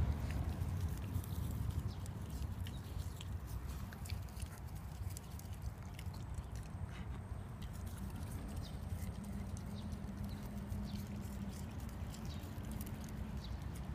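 Shiba Inu nibbling and chewing roadside weeds: small, crisp, irregular clicks over a steady low rumble.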